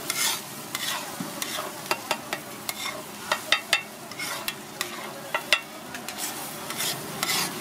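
A metal spatula scraping and clacking on a large flat griddle as it chops and stirs a frying egg mixture, with irregular sharp clacks over a steady sizzle.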